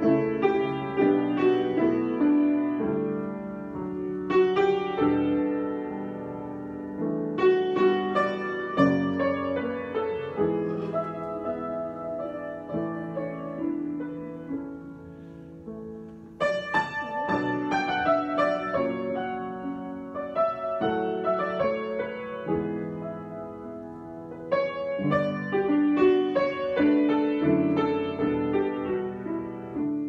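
Solo grand piano being played, improvised, with chords and moving melodic lines that swell and ebb in phrases. After a softer passage, a loud chord is struck about halfway through.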